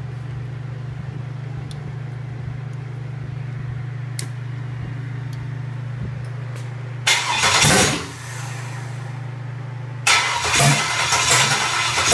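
An engine on a test stand being started: a steady low hum for several seconds, a loud short burst about seven seconds in, then the engine catches about ten seconds in and runs loud and uneven.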